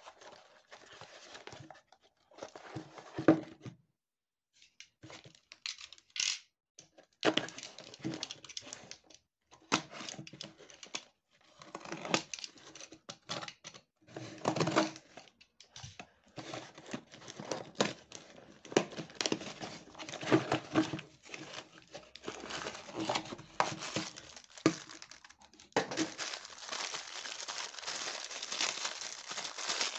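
A cardboard parcel being unboxed: a box cutter slitting the packing tape and the cardboard flaps pulled and handled, in irregular bursts with sharp clicks. Near the end, the clear plastic wrapping around a toy crinkles steadily.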